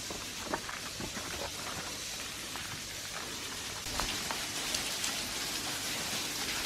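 Steady splashing of a small seasonal waterfall, with a few scattered sharp clicks; it grows a little louder about four seconds in.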